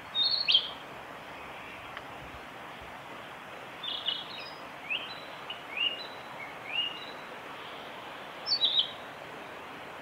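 Male narcissus flycatcher singing over a steady background hiss. A short bright phrase comes right at the start, a longer string of clear upslurred whistles follows around the middle, and another short phrase comes near the end.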